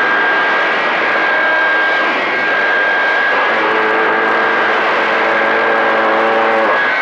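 CB radio receiver on channel 28 hissing with open-channel static, a steady high whistle held throughout. From about three and a half seconds in until near the end, a second carrier comes in as a buzzing hum with several steady tones, then drops out.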